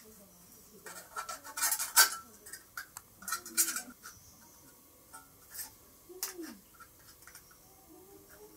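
Tin snips cutting a thin tin can: irregular clusters of sharp metallic snips and clicks, the loudest about two seconds in and again around three and a half seconds in, with a few single snips later.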